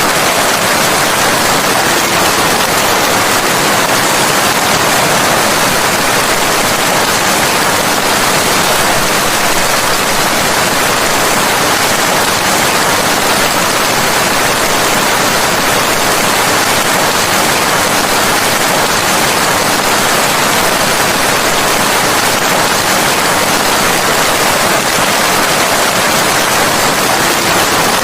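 Steady heavy rain: a loud, even hiss of water with no breaks or separate drops standing out.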